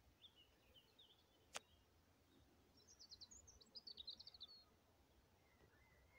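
Faint songbird singing: a few soft chirps, then a quick run of high notes about three seconds in. A single sharp click sounds about a second and a half in.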